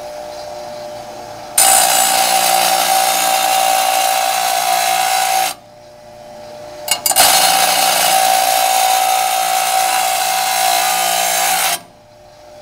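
Half-horsepower grinder running with a steel mower blade pressed to the wheel twice: two loud grinding passes of about four seconds each. The first starts about a second and a half in; the second follows a short pause with a couple of knocks.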